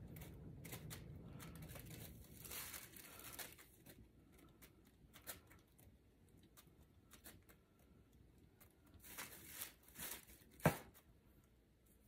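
Plastic drop sheet crinkling and rustling in irregular bursts as a wet poured canvas is handled and tilted on it, with one sharp knock near the end.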